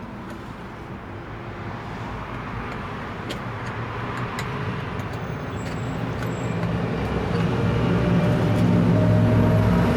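An engine running at a steady pitch, growing gradually louder over several seconds and loudest near the end.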